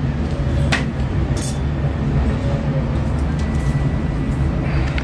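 Steady low rumble of street traffic, with a couple of light handling clicks about a second in.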